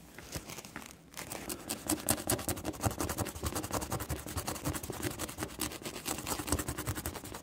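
A swab wet with cleaning fluid scrubbing over a printed circuit board in rapid scratchy back-and-forth strokes, cleaning flux residue off freshly soldered joints. It starts about a second in and keeps going until near the end.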